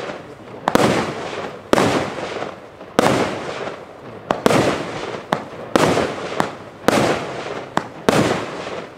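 Evolution Fireworks 'Color Ghost' consumer fireworks cake firing shot after shot, a sharp bang roughly every second or so, each dying away over about a second, with a few smaller pops between.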